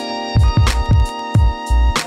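Music with drums and a steady beat over sustained pitched instruments.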